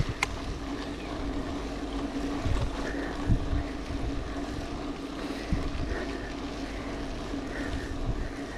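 Mountain bike rolling over a rough gravel road: tyre rumble with wind on the microphone, a steady hum underneath and a few short knocks.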